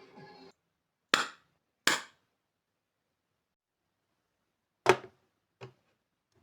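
Airsoft Makarov PM replica pistol firing four sharp shots: two about three quarters of a second apart near the start, then two more about three seconds later, the last one quieter.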